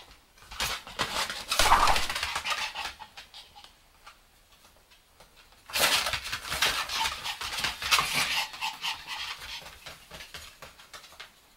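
Two Pomeranians play-fighting: dog noises mixed with scuffling, in two bouts, one in the first three seconds and a longer one from about six seconds in.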